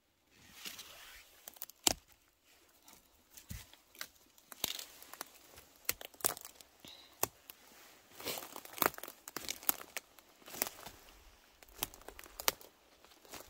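Dry forest litter crackling and rustling as it is disturbed, with irregular sharp snaps of twigs and needles, some much louder than others.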